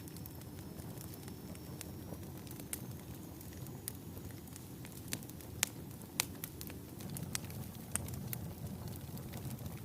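Wood fire burning in a fireplace: a steady low rumble of flames with scattered sharp crackles and pops, the loudest a little past halfway.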